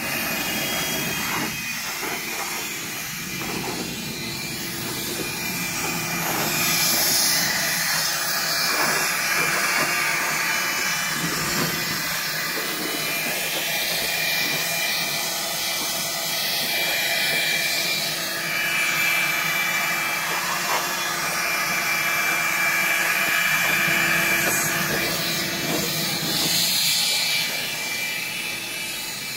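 A corded electric machine running steadily: a continuous hissing whine with no breaks.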